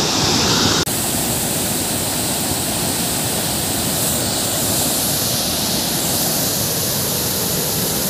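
Hogenakkal Falls on the Kaveri River: a loud, steady rush of a large waterfall in full flow, with a momentary break just under a second in.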